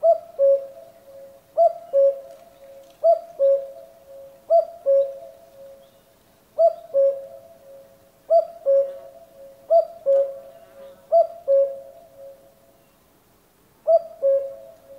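Common cuckoo calling its two-note "cuck-oo", the second note lower than the first, repeated about every second and a half, nine calls in all with a short pause before the last one.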